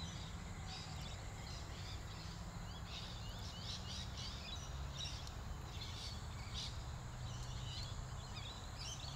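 Birds chirping in many short, high calls, scattered throughout, over a faint steady low rumble of outdoor background noise.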